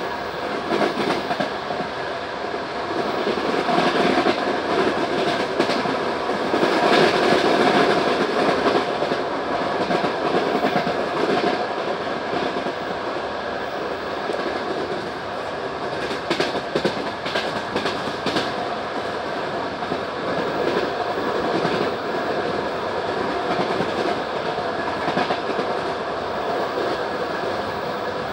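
Passenger railway coach running along the track, heard from aboard: a steady rumble of wheels on rails with the clickety-clack of wheels over rail joints, including a quick run of clicks about two thirds of the way through.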